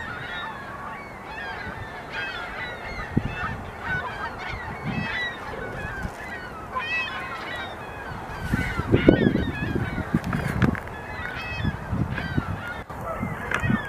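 Beavers gnawing bark off a log lying in the water, giving wet, crackly crunching bursts that are thickest and loudest around nine seconds in. Behind them, a large flock of birds calls without a break.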